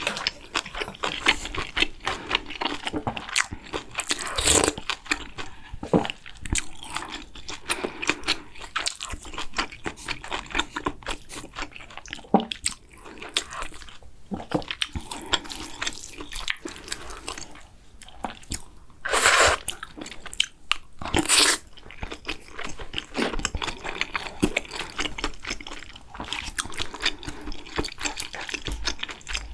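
Close-miked eating sounds: continuous, irregular chewing and crunching of food, with two longer, louder noisy sounds of about a second each a little past the middle.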